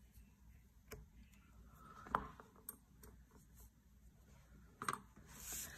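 A few faint, sharp clicks and taps of small supplies being handled while washi tape is laid down on planner pages, the loudest about two seconds in.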